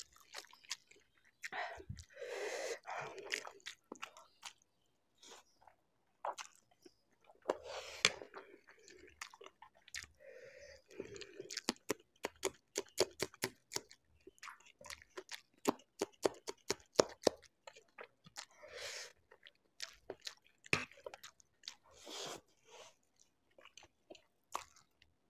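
Close-up mouth sounds of eating instant noodles: slurping and wet chewing. Around the middle, a quick run of crisp crunches as a raw green chili is bitten and chewed.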